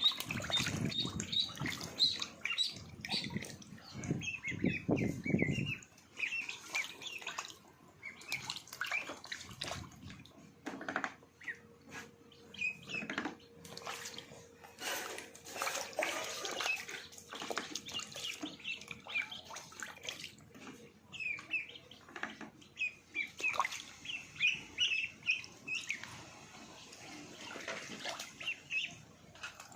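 Ducklings peeping in short high chirps while water splashes and sloshes, with scattered knocks. A low rumble runs through the first few seconds.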